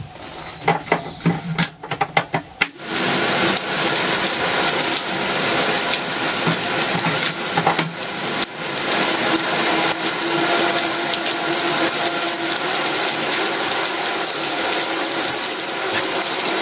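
A few knocks and rattles, then about three seconds in a homemade fan-on-a-cardboard-box winnower starts and runs steadily under a metal sieve. Its airstream blows through dry-milled green coffee beans and their parchment shells, with many small clicks through the steady noise as they are blown apart.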